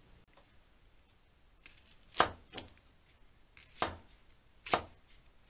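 Small handmade cooking knife slicing peeled garlic cloves on a wooden cutting board. Four quick cuts begin about two seconds in, each ending against the board, and the first is the loudest.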